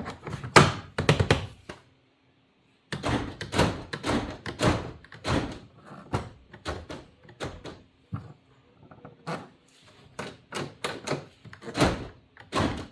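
An irregular run of clicks, knocks and thunks from handling and fitting parts on a truck door, with a short break about two seconds in.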